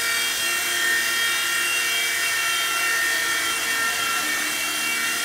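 WL V911 micro RC helicopter hovering: its small electric motors and rotors give a steady whine of several tones, which shift a little in pitch about four seconds in.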